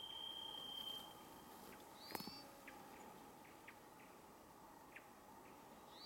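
Varied thrush singing its single long, steady whistled note, which ends about a second in. Short high chips from other birds are scattered throughout, with one sharper, louder call about two seconds in.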